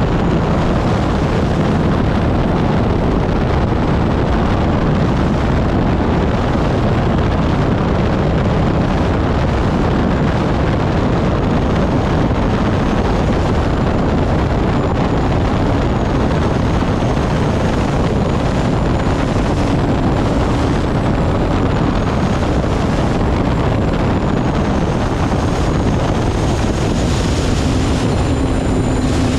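Turbine engine of an unlimited hydroplane running at racing speed, heard from onboard as a steady loud rush with a faint high whine wavering on top, mixed with wind on the microphone.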